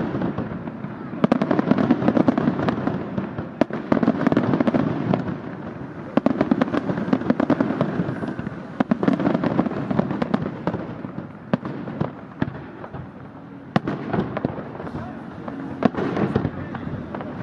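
Aerial fireworks bursting in rapid waves, each a dense run of sharp bangs and crackling, coming back every two to three seconds.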